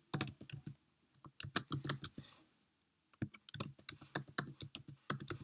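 Typing on a computer keyboard: quick runs of key clicks in three bursts with short pauses between them, as a line of text is typed.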